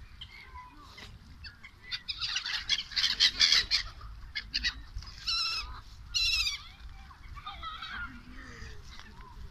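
A flock of gulls calling: a burst of harsh, raspy squabbling calls about two seconds in, then two loud drawn-out calls around five and six seconds, the second falling in pitch.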